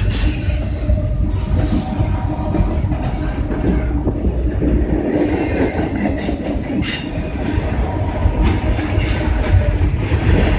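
Hopper cars of a slow-moving CSX coal train rolling past close by: a steady low rumble of steel wheels on rail, with short high-pitched wheel squeals several times.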